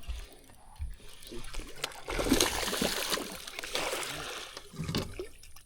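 Water splashing, loudest in the middle stretch: a hooked bass thrashing at the surface as it is reeled toward the boat.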